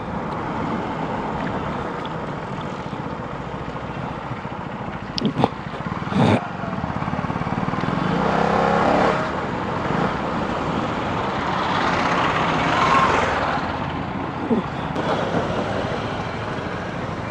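KTM Duke 250 motorcycle on the move at road speed, heard mostly as a steady wind rush and road noise, swelling in the middle. Two short sharp sounds come about five and six seconds in.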